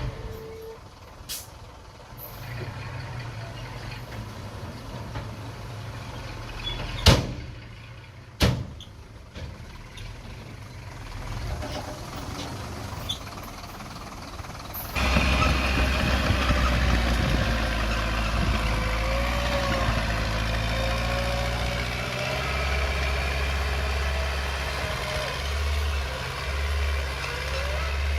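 Diesel engine of a small earthmoving machine running steadily, with two sharp bangs about seven and eight seconds in. About halfway through it gets much louder and stays louder, as under working load.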